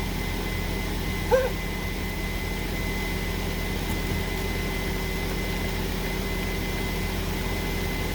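2005 Honda Civic DX's four-cylinder engine idling steadily, just after a rod-bearing repair, with rain falling. A short sharp yelp-like call stands out about a second in.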